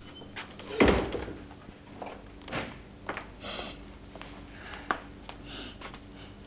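A heavy thump about a second in, followed by a few soft rustles and a sharp click, over a steady low hum.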